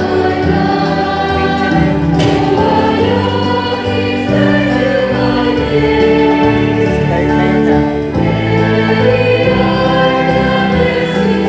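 Congregation and choir singing a Christian worship song over steady instrumental accompaniment.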